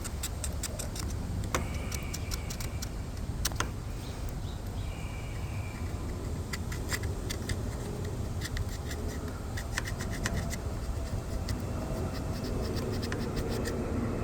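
Short runs of quick, light metallic clicks from hand tools working on the car, several times over, against a steady low rumble.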